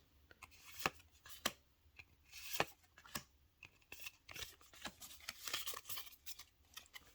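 Trading cards being handled and flipped through: scattered short clicks and soft slides of card stock.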